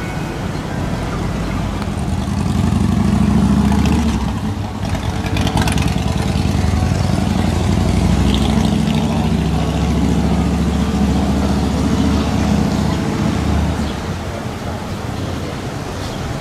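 A motor vehicle's engine running, low and steady, growing louder about two seconds in and dropping back near the end.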